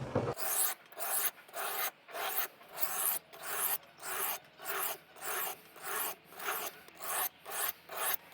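Steel kitchen knife blade stroked back and forth across the coarse side of an oilstone in sharpening passes, an even rasping scrape about twice a second.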